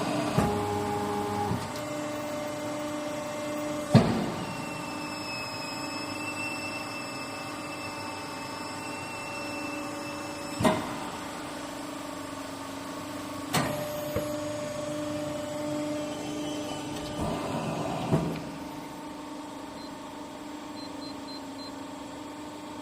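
Hydraulic power unit of a 40-ton rubber bale guillotine cutter running with a steady hum through a cutting cycle, broken by a few sharp clunks. Two of them come about three seconds apart, where the blade holds at the bottom of its stroke before rising.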